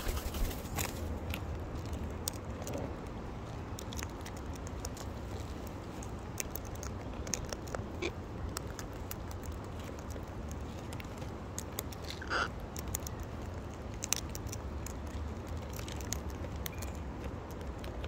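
Sulphur-crested cockatoos feeding on seed from plastic tubs: scattered small clicks and crackles of beaks cracking seed and tapping the plastic. A sharper knock comes right at the start, all over a low steady rumble.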